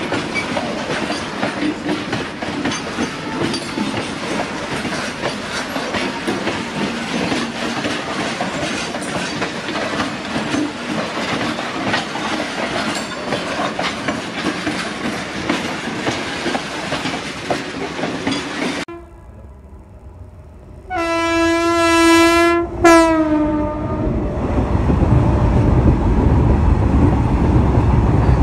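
Goods wagons rolling past on steel wheels, with a busy clickety-clack of wheels over rail joints and points. After a sudden cut and a brief lull, a locomotive horn sounds one long blast and then a short one, followed by a low rumble as a train of tank wagons runs past close alongside.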